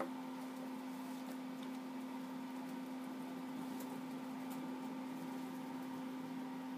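A steady room hum with a constant pitch, and a few faint light clicks of the cardboard packaging tray being handled.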